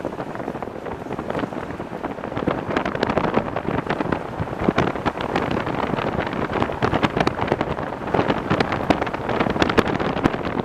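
Wind buffeting the camcorder's microphone as it moves, a rough rumbling rush full of irregular crackles.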